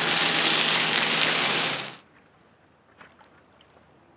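Pork and egg sizzling loudly on a hot iron teppan griddle under metal spatulas, with a dense crackle. It cuts off suddenly about two seconds in, leaving near silence with a few faint ticks.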